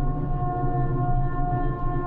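Ship crane machinery running steadily: a low engine drone with a steady whine of several held tones on top, heard from the operator's cabin.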